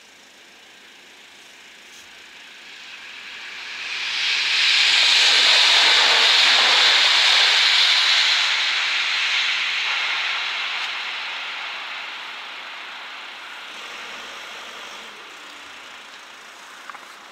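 A train passing over the level crossing: the hiss of wheels on the rails swells to a peak about five seconds in, then fades away over the next ten seconds.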